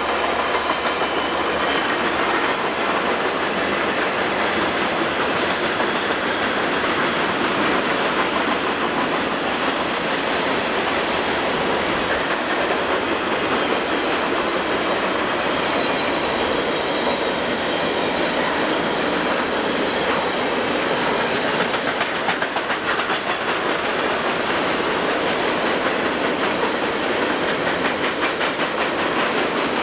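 Two Conrail freight trains rolling past side by side downgrade in dynamic braking, a steady loud rumble. For the first few seconds a whine comes from the passing locomotives, then the wheels of the trailer flatcars click rapidly over the rail joints.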